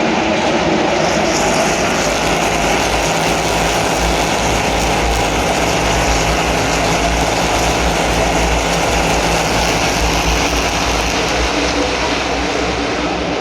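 NASCAR Cup stock cars' V8 engines running around the track as a pack, a loud steady roar.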